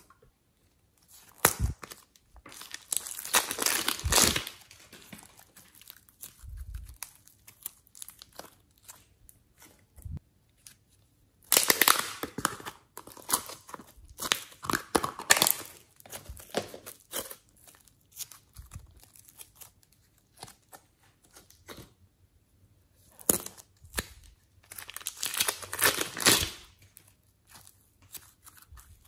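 Hands squeezing and stretching thick slime and pulling it out of a plastic tub: sticky crackling and tearing sounds. They come in three louder spells, near the start, in the middle and near the end, with softer squishing between.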